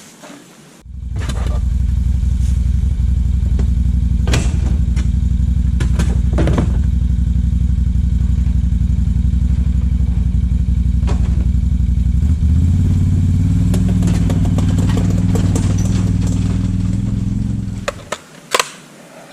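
Kubota LX2610 compact tractor's three-cylinder diesel engine running steadily, starting abruptly about a second in, rising to a higher engine speed about twelve seconds in, then dying away near the end. A few knocks and clunks sound over it.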